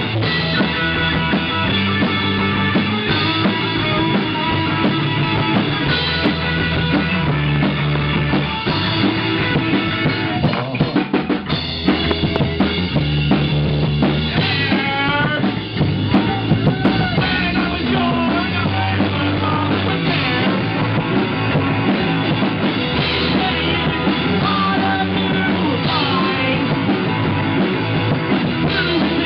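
Live rock band playing loud electric guitar, bass guitar and drum kit, with a run of rapid drum hits around ten to twelve seconds in. The recording is rough and poor in quality.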